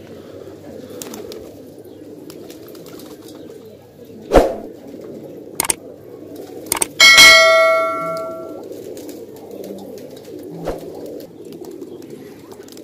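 A flock of domestic pigeons cooing steadily. About four seconds in there is a sharp thump, and a few seconds later a loud metallic clang that rings out for about a second and a half.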